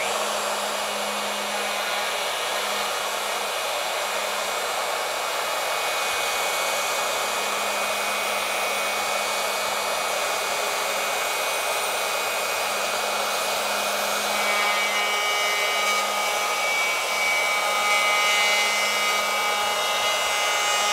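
Ryobi router running steadily at full speed as its bit takes a fine shaving off a tabletop's end tongue. A loud, even whine, with a slight change in tone about two-thirds of the way through.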